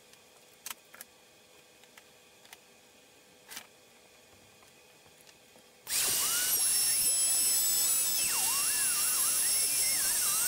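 A few faint clicks and knocks, then about six seconds in a handheld router starts suddenly with a high whine and runs on. Its pitch wavers as it cuts along the edge of a plywood template.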